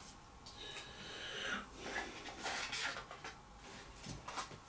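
Faint rustling and light knocks of cardboard and paper packaging being handled as a phone's accessories are unboxed and a small plastic adapter is taken out.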